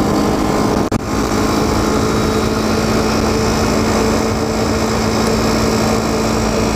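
ATV engine running steadily while riding along a gravel road, with road and wind noise. The sound drops out for a split second about a second in.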